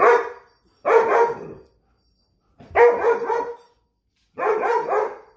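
A dog giving four drawn-out barks in rough play, each close to a second long, with short silences between them.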